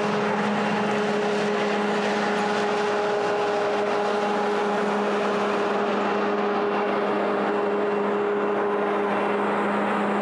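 John Deere 9750STS combine harvester running steadily while harvesting, a constant-pitch mechanical hum under a steady whir.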